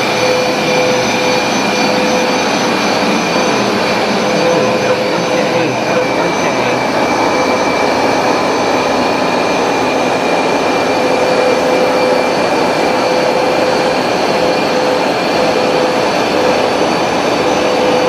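Hoover SmartWash automatic carpet cleaner running steadily: a loud, even motor and suction rush with a steady high whine that holds one pitch throughout.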